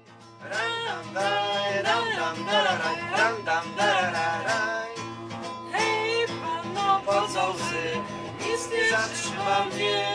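Background music, a country-style tune with plucked strings, starting right after a brief silence.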